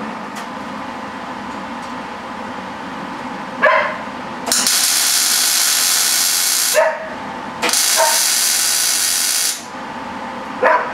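MIG welder arc crackling and hissing in two runs of about two seconds each, welding the seams of a steel intake tube. A steady hum comes before the first run, and three short chirps fall before, between and after the runs.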